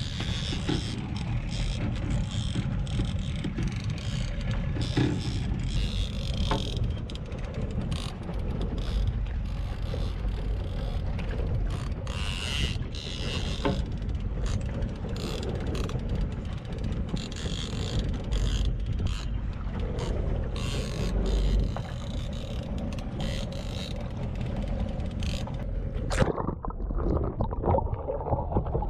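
Small open fishing boat at sea: a steady low rumble of wind and boat motion with water splashing and slapping against the hull. A little before the end it gives way to a dull, muffled underwater sound.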